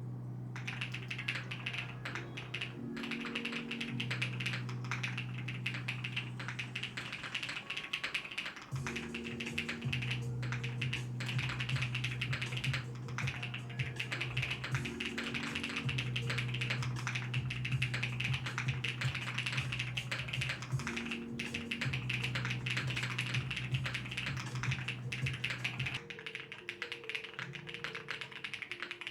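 Rapid, continuous typing on a Qwertykeys QK80 custom mechanical keyboard, a dense stream of key clicks. Soft background music with slow, sustained low chords plays underneath.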